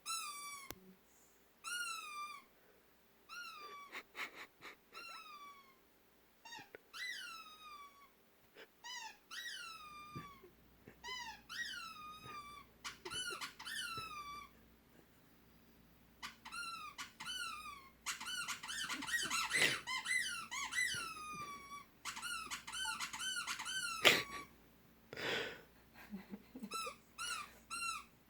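Short high squeaks, each sliding down in pitch, repeated many times singly and in quick runs. A sharp knock sounds about 24 seconds in.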